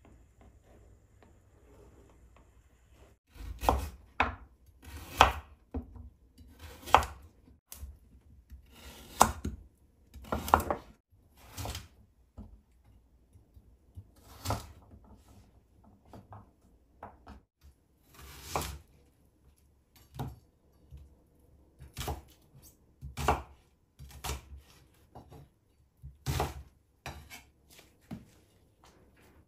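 Knife cutting food on a cutting board: separate, unhurried strokes at an irregular pace, about one a second, starting about three seconds in.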